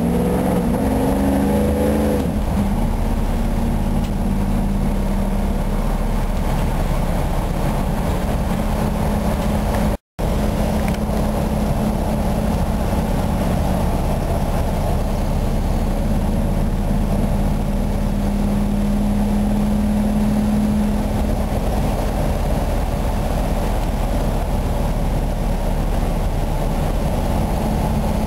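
A 1981 Dodge B300 van's 360 cubic-inch V8, with headers and a four-barrel carburettor, running under way, heard from inside the cab with road noise. Its note rises in steps over the first two seconds as it picks up speed, then holds steady, and the sound cuts out for an instant about ten seconds in.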